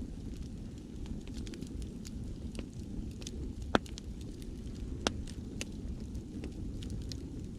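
Wood fire crackling with scattered small snaps and two sharp, louder pops near the middle, over the low, steady wash of ocean waves.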